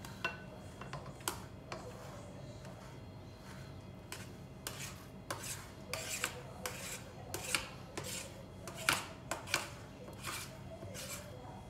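A utensil scraping and rubbing against a dish in a run of short, irregular strokes, coming thicker in the middle, as in scraping or spreading in the kitchen.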